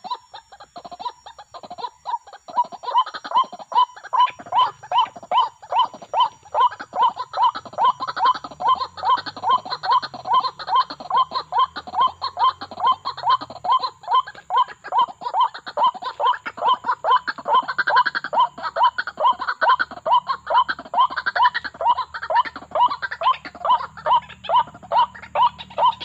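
White-breasted waterhen calls, a rapid 'ruak-ruak' repeated about two to three times a second without a break.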